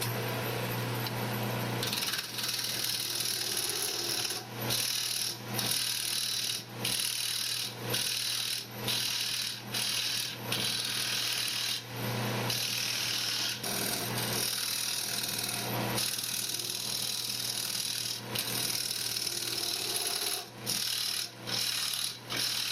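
Wood lathe running with a turning tool cutting into the spinning wood blank: a scraping hiss over a steady motor hum, broken by many short gaps as the tool lifts off between passes. The recess of a turned frame is being cut out to fit a plate's diameter.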